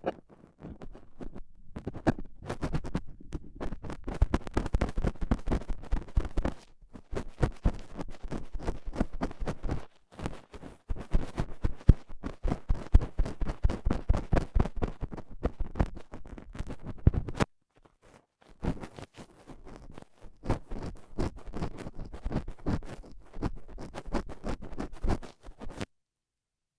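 Stainless steel dental pick scraping and scratching in an ear canal, dislodging dried earwax: dense runs of fast scratching strokes, broken by short pauses, that stop about a second before the end.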